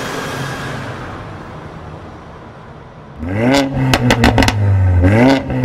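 Audi S1's turbocharged four-cylinder revving through a cat-back exhaust: after a fading whoosh, the engine revs up sharply about three seconds in, holds, dips and revs again near the end, with sharp cracks through the revs.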